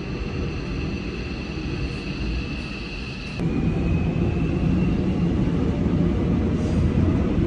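Subway train running: a steady low rumble with a high whine over it. About three and a half seconds in it changes abruptly to a louder rumble with the whine much fainter.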